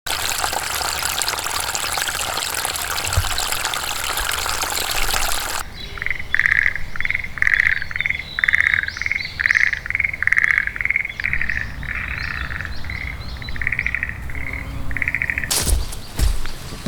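A steady rushing hiss for the first five seconds or so cuts off. A frog then calls in a run of short, rattling croaks, one or two a second, for about ten seconds, with a couple of sharp knocks near the end.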